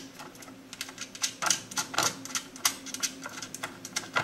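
Small metal hardware clicking and tapping irregularly as 4-40 nuts with built-in lock washers are fitted by hand onto the screws holding a circuit-board module to a metal chassis, over a faint steady hum.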